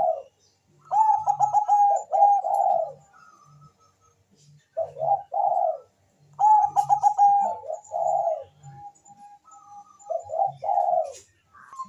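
Bangkok-bred zebra dove (perkutut) singing: four phrases, each a quick stuttering run of notes that runs into soft rolling coos, with pauses of a second or two between them.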